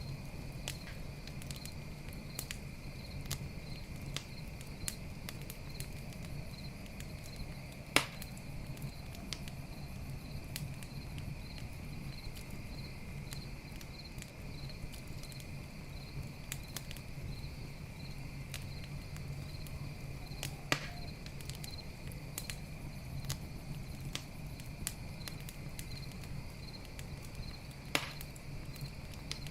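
Campfire crackling, with many small snaps and three louder pops, over crickets chirping steadily.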